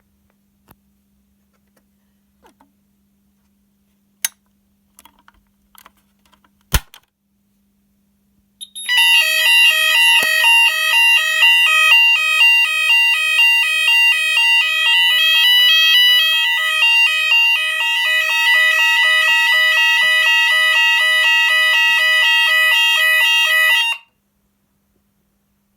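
Hochiki fire alarm sounders going off in alarm with a loud, rapidly alternating tone, starting about nine seconds in and cutting off abruptly near the end. A few sharp clicks come before it.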